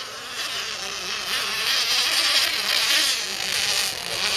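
Nitro RC racing boat engines running flat out with a high, thin buzz, growing louder about a second in as the boat comes closer.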